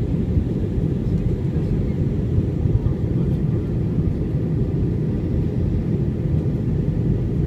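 Steady low roar of an aeroplane in flight heard inside the cabin, the engine and airflow noise holding an even level.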